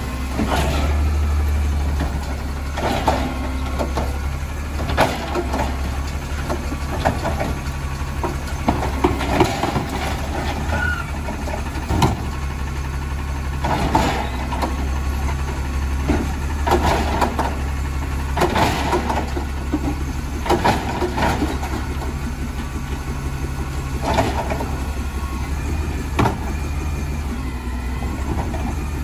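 Natural-gas automated side-loader garbage truck running steadily with a low engine hum while its arm lifts and dumps a recycling cart. Sharp bangs and clatters come every second or two from the cart and its contents.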